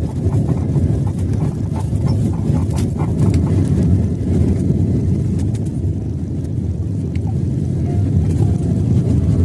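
Airliner cabin noise during take-off: a steady low rumble of jet engines and airflow heard from inside the cabin, with a few faint ticks.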